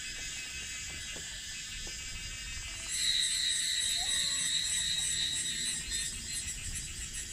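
Steady, high-pitched chorus of insects, swelling louder about three seconds in and easing back near the end.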